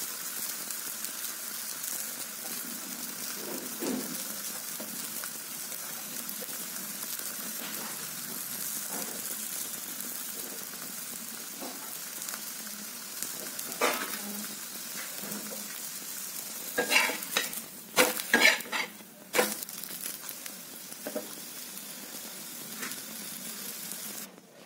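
Rice and chana dal batter pancake sizzling steadily on a hot tawa. Past the middle comes a cluster of sharp scraping knocks on the pan, the loudest sounds here, and the sizzle cuts off suddenly near the end.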